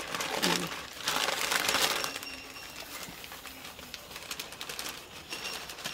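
Rustling and crinkling of a large white sheet as it is lifted, held up and handled, loudest from about one to two and a half seconds in.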